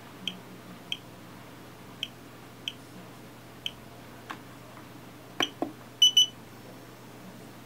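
Short high piezo beeps from a homemade soldering station's buzzer, one at a time at uneven gaps of about half a second to a second, with a few sharp clicks, then a louder double beep about six seconds in. A steady low hum runs underneath.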